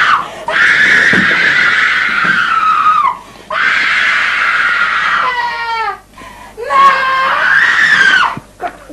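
A young woman screaming while being held down: three long, high screams, the middle one breaking into a falling, wavering wail.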